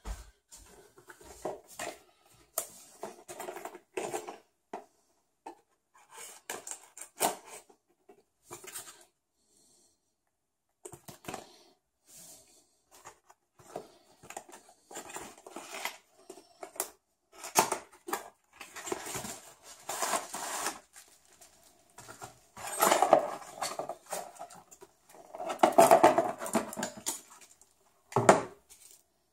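Graphics-card retail box and its paper inserts being handled and unpacked by hand: irregular cardboard knocks, scrapes and rustling, loudest about 23 and 26 seconds in.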